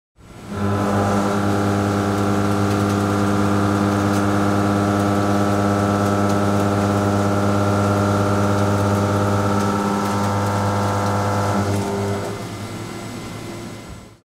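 Walter M3024 face mill with six seven-edged (heptagon) indexable inserts finish-milling 42CrMo4 steel at about 1,010 rpm. It makes a steady hum at the tooth-passing rate of about 100 Hz, with a stack of overtones above it. About twelve seconds in the tone drops away, leaving quieter machine noise.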